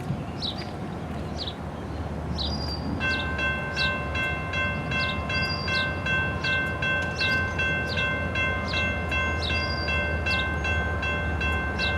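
A railroad grade-crossing bell starts ringing about three seconds in, a steady high clang repeating rapidly, as a train approaches. Over it a bird gives a short falling chirp about twice a second, with a low steady rumble beneath.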